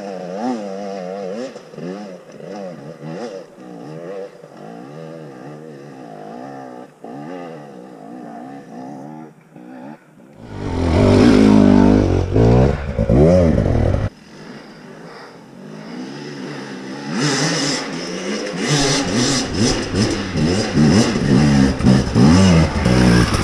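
KTM TPI two-stroke enduro motorcycle engines revving on a trail ride, the pitch rising and falling with the throttle. About ten seconds in a bike passes close at high revs and is loud for a few seconds, and from about seventeen seconds engines rev hard and loud again.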